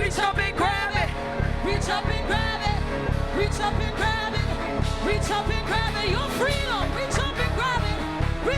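Live worship music: a band with a fast, steady bass-drum beat under sung vocals.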